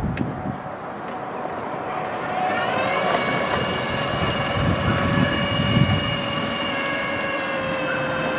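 CREE MH 108 brushless electric outboard motor whining under power. About two to three seconds in its several-toned whine rises in pitch as the motor speeds up, then holds steady and high, over a low rumbling noise.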